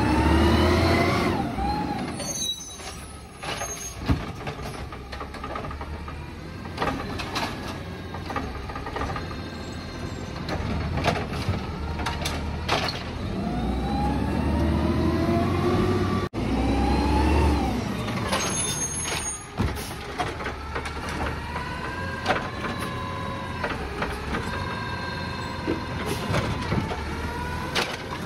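Scorpion automated side-loader garbage truck at work: its engine revs up and falls back with a hydraulic whine as the arm lifts, dumps and lowers a cart, twice. An air brake hisses after each cycle, with sharp knocks from the carts and arm in between, and a steady whine near the end as the last cart is set down.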